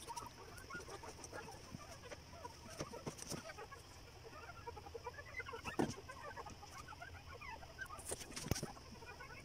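Many short, high, squeaky animal calls scattered throughout, with two sharp knocks about six and eight and a half seconds in.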